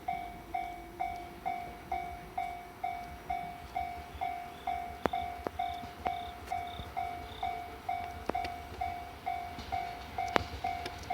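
Japanese level-crossing warning bell ringing steadily, about two electronic dings a second. A low rumble runs underneath, and a few sharp clicks come in the second half.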